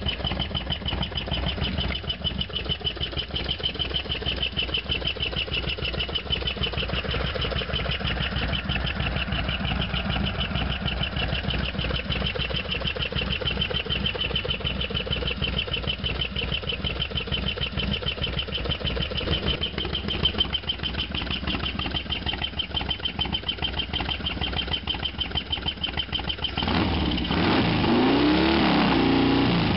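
Harley-Davidson FXDX V-twin engine idling with a fast, even pulse and a steady high-pitched tone running over it, the loud noise in question. Near the end the engine is revved once and settles at a higher, louder run.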